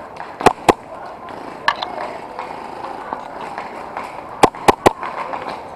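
Airsoft guns firing single shots as sharp cracks: a pair about half a second in, one more about a second later, and three quick shots near the end, over a steady outdoor hiss.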